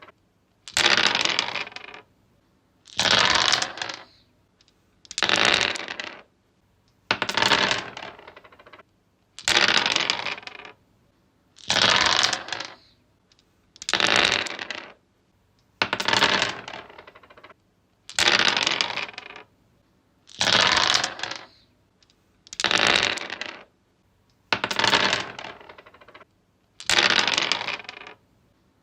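Dice rolled again and again across a wooden surface, about one roll every two seconds, thirteen in all. Each roll is a quick clatter of tumbling dice that dies away within about a second.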